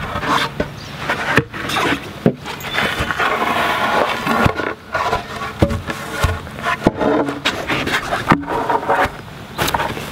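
Rough-sawn wooden boards being handled and laid down on grass, with repeated knocks of wood on wood and rough scraping of the boards. Footsteps in rubber boots on the laid boards come near the end.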